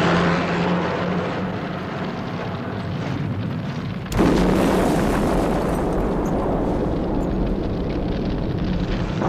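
Sound effects of a building fire: a steady noisy rush, then a sudden loud explosion about four seconds in, its deep rumble carrying on to the end.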